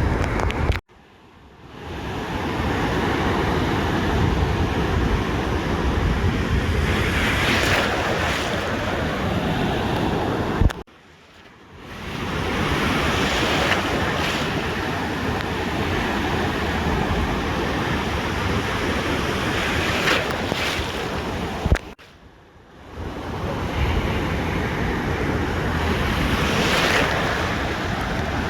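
Ocean surf breaking and washing onto a beach in waves that swell every several seconds, with wind rumbling on the microphone. The sound drops out abruptly three times, about ten seconds apart, each time fading back in over about a second.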